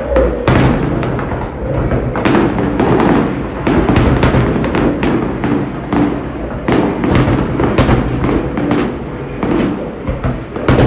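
Fireworks going off in quick succession: about two dozen sharp bangs, several a second, each trailing off briefly.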